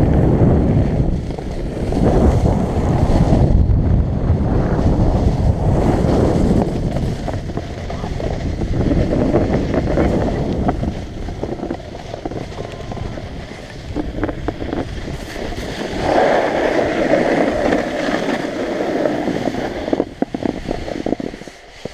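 Wind rushing over the camera's microphone during a downhill ski run, swelling and easing with speed, over the hiss of skis sliding on the snow. Near the end the rush drops away and a run of short knocks is heard.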